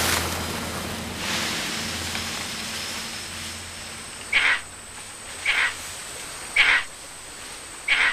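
Water splashing and churning as a crocodile lunges at a proboscis monkey, fading over the first few seconds. From about halfway on, a short call repeats four times, about once a second.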